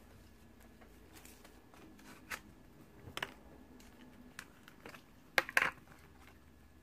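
Small plastic toy jar handled and opened: a few light clicks and taps, with the loudest pair of clicks close together about five and a half seconds in.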